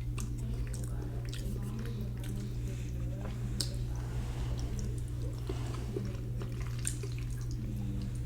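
A person chewing fried egg close to the microphone: wet mouth clicks and smacks scattered through, over a steady low hum.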